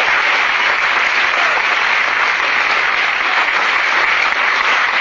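Audience applauding steadily as a speaker finishes her talk.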